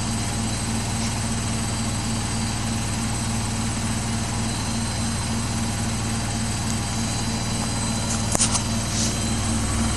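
Samsung WW80J5555FWEU washing machine running on its Daily Wash 40°C cycle: a steady machine drone, with a short knock about eight seconds in.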